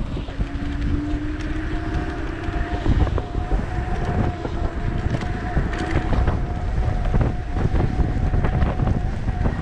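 Wind buffeting the microphone on a moving Sherman electric unicycle, with the hub motor's faint whine rising slightly in pitch over the first few seconds and a steady higher tone above it.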